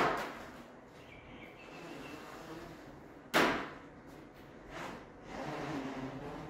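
Handling of a roof-top tent's travel cover and straps: a sharp knock at the very start and a louder one about three and a half seconds in, each echoing off the shed walls, then softer rustling of the cover near the end.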